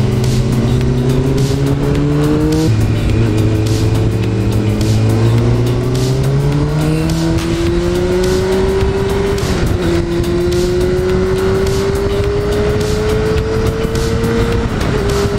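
Honda CBR600 F4's inline-four engine pulling hard under acceleration, its pitch climbing steadily through the revs and dropping at each upshift: about 3 s in, about 10 s in, and near the end. Wind rushes and flutters over the riding camera's microphone.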